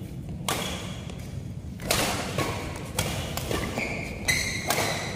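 Badminton rally: rackets striking the shuttlecock roughly once a second, with players' footfalls on the court. A short high squeak from shoes on the court floor comes near the end.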